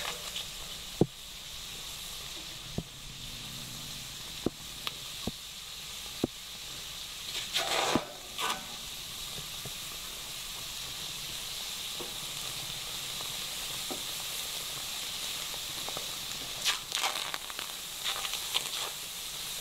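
Young potatoes and leeks frying in butter over an open fire, a steady sizzle, with a few sharp pops in the first half and two short louder stretches, about eight seconds in and near the end.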